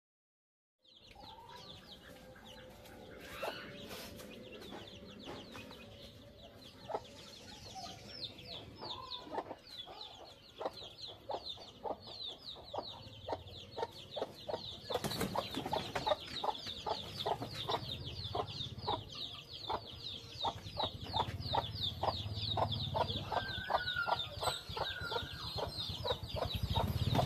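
Domestic chickens: a brood of chicks peeping in a fast, unbroken run of short high chirps, with a hen clucking among them. It starts about a second in and grows louder toward the end.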